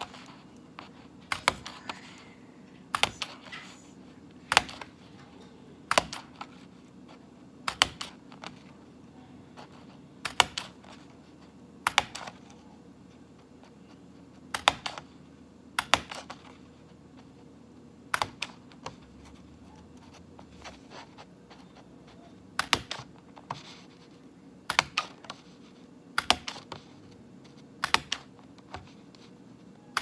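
Handheld single-hole paper punch snapping through cardstock over and over, a sharp click about every one and a half seconds.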